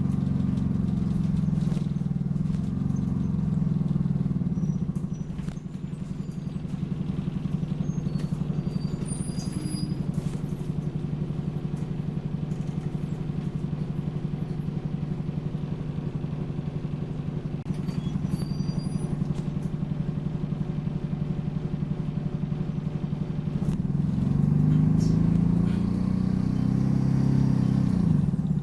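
Optare Solo single-deck bus's diesel engine heard from inside the bus: running steadily, then revving up and rising in pitch near the end as the bus gathers speed. Brief high squeaks sound a few times over the engine, the squeaky noise this bus has.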